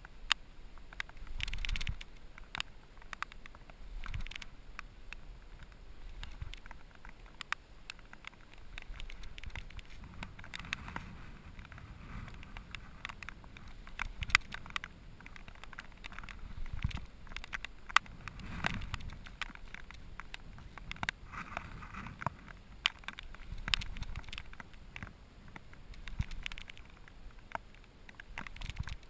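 Handling noise while a fish is fought on rod and reel: irregular light clicks and rustles over a low rumble of wind and lapping water that swells now and then.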